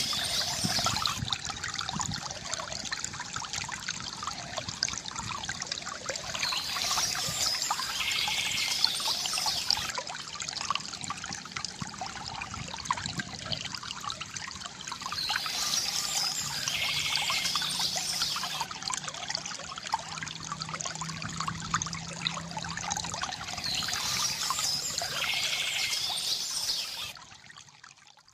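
River water gurgling and trickling steadily, with a short burst of bird chirping returning about every eight or nine seconds. The water sound drops away suddenly near the end.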